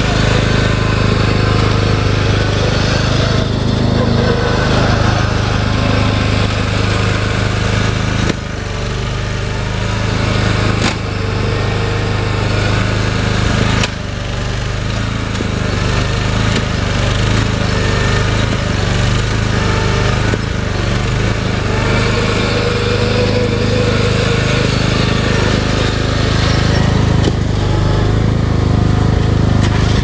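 Lawn mower engine running steadily, dipping briefly a couple of times.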